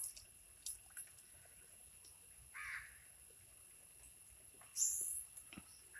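Faint splashing of hands working in shallow river water at the bank, loudest in a brief burst near five seconds. A single bird call sounds about two and a half seconds in.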